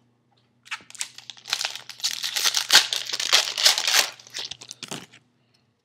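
Foil trading-card pack wrapper crinkling and tearing as it is ripped open and handled, a dense run of crackles lasting about four seconds.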